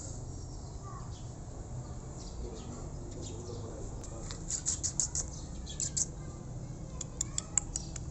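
Small birds chirping: short, high chirps in quick clusters, about halfway through, again near 6 seconds, and near the end, over a low steady background rumble.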